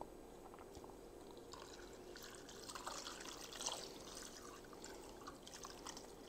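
Water poured from a pitcher into a slow cooker full of beef and crushed tomatoes: a faint, irregular splashing trickle, loudest in the middle.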